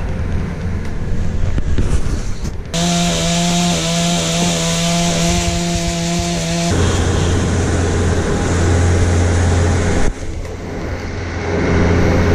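Chainsaw running loudly, held at a steady high-revving note for about four seconds before dropping back to a lower, rougher running sound.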